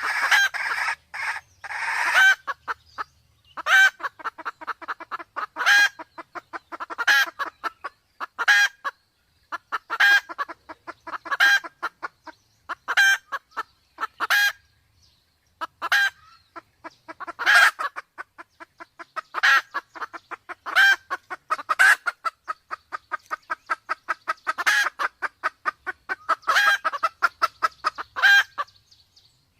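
Red junglefowl hen clucking: a louder call about every second and a half, with quick runs of soft clucks in between and a brief pause about halfway through. A call of this kind is used to lure wild junglefowl.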